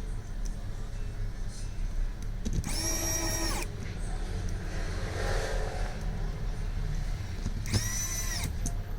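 Electric precision screwdriver whirring in two short bursts, about three seconds in and again near the end, each spinning up to a steady whine and stopping after about a second, as screws are driven into a smartphone.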